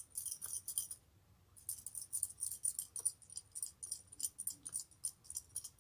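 Three coins shaken together in cupped hands, jingling in quick, light metallic clinks. The clinking stops briefly about a second in, then starts again.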